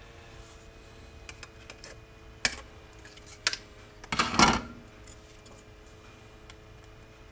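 Sprue cutters snipping plastic parts off the parts tree: two sharp single snaps about a second apart, then a louder, longer clatter of plastic handling about four seconds in.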